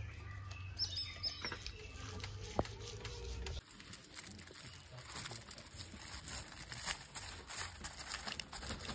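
Hands rubbing and smearing thick wet masala paste into the scored skin of a whole mahi mahi on a banana leaf: soft, irregular wet squishing and pats, busiest in the second half. A few short bird chirps sound about a second in.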